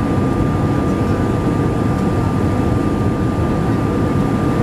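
Airbus A320 cabin noise on approach: a steady rumble of engine and airflow heard from a seat over the wing, with a thin steady tone running above it.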